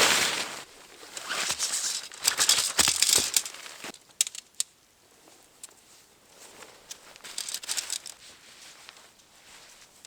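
Tent fabric rustling and crinkling as it is handled, in loud bursts over the first four seconds. A few sharp clicks follow, then a shorter burst of rustling near the end.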